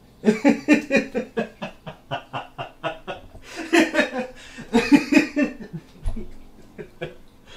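A person laughing in quick runs of short pulses, several bouts that die down near the end, with a brief dull knock about six seconds in.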